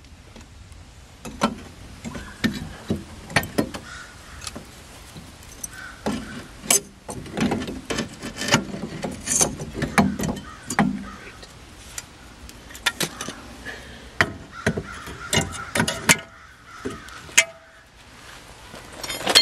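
Irregular metallic clinks and knocks from a brake caliper and suspension parts being handled and set against the steering knuckle, with many separate sharp taps and a few louder knocks.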